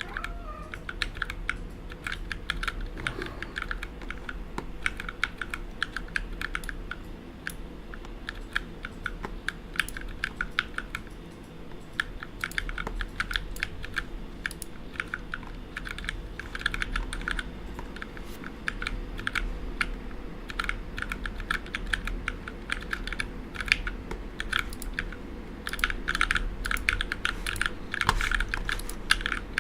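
Typing on a mechanical keyboard with Cherry MX "Ergo" Clear tactile switches: rapid key presses in runs with short pauses, busiest near the end.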